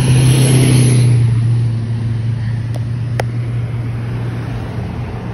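A motor vehicle going by close at hand, its engine hum loudest at first and then fading away. Two sharp clicks come about three seconds in.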